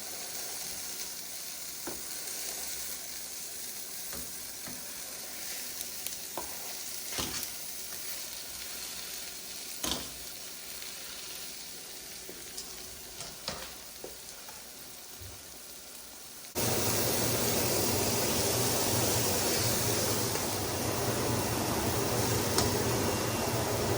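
Pork burger patties sizzling in a frying pan, with scattered sharp clicks and taps of a spatula against the pan. About two-thirds of the way through, the sound jumps abruptly to a louder, steadier hiss.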